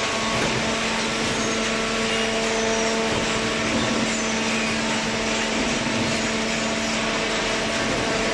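Vertical hydraulic baler's motor and pump running steadily: a constant hum over an even hiss of machine noise.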